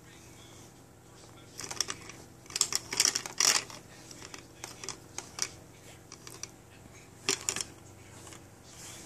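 Plastic activity toy on a baby seat clicking and rattling in several short bursts as a baby bats at and turns its parts.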